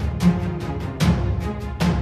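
Soundtrack music with a steady, heavy drum beat, a strong hit about every 0.8 seconds.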